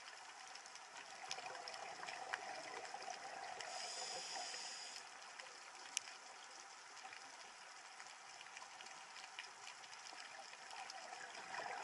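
Faint trickling water, with a few small clicks and one sharp tick about six seconds in.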